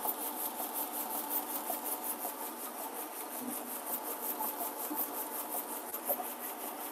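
Roll-fed label finishing machine running steadily, with a fast, even ticking over a constant mechanical hum as the label web feeds through.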